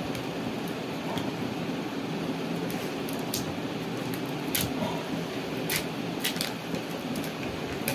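Scissors snipping and the foil pouch of a lithium-ion pouch cell crinkling as it is cut and peeled open, a handful of sharp crackles, over a steady background hum.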